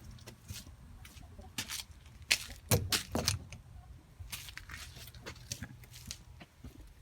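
Metal tools and small hardware clinking and rattling as they are handled, with a cluster of sharper knocks around the middle. A low steady hum runs underneath and fades near the end.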